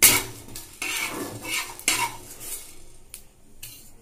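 Metal spatula scraping and tapping across a dry non-stick frying pan, stirring whole cumin and coriander seeds, bay leaf and dried chilli as they dry-roast. A quick run of scrapes, then quieter for the last second or so.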